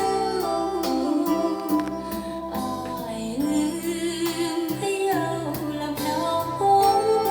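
A song with singing and plucked-string accompaniment, played from CD through a pair of Polk RTi A3 loudspeakers.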